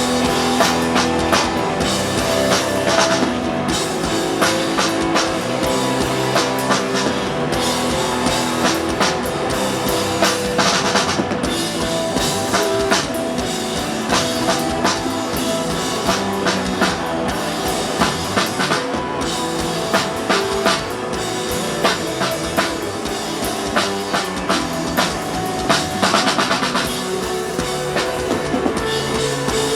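Live rock band playing an instrumental passage: electric guitar and bass holding sustained notes over a steady drum-kit beat.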